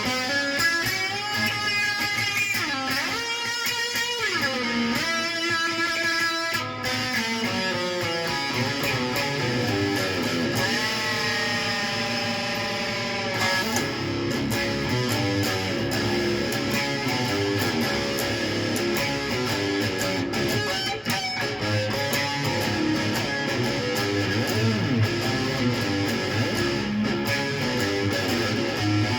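A stringed instrument played continuously: runs of notes with pitch slides, and a held, wavering note about halfway through.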